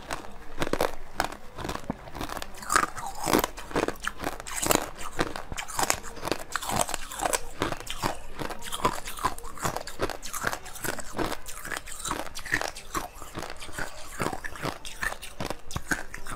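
Close-miked biting and chewing of crunchy coloured ice: a continuous run of sharp crunches, several a second.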